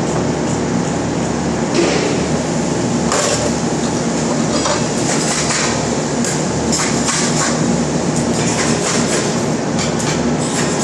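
Steady factory machinery din with a low hum, and from about three seconds in, irregular sharp metal clanks and knocks as steel bars are handled on a welding jig.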